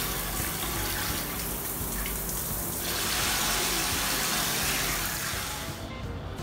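Handheld shower head running a strong, steady spray of water that splashes into a toilet bowl. Music starts near the end.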